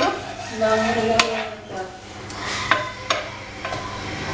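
A utensil stirring a thick mixture in a blender jar, with a few sharp clinks against the jar about one, two and a half and three seconds in.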